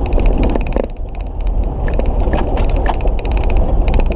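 4x4 driving slowly over a gravel canyon track: a steady low road-and-engine rumble with scattered clicks and knocks from stones and rattles.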